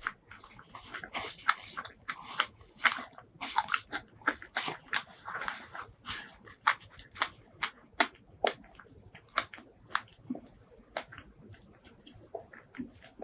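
Close-miked eating sounds: biting and chewing, with wet, crunchy clicks. They come thick and fast for the first several seconds, then thin out to scattered clicks.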